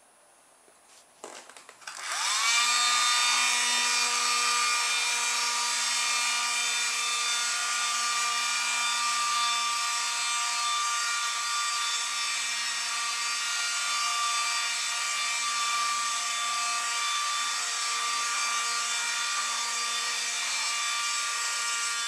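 A couple of clicks, then at about two seconds the small battery-powered motor and fan of a USB computer vacuum cleaner spin up quickly into a steady high whine. The motor is driving a cardboard jet car and keeps running, fading only slightly as the car moves off.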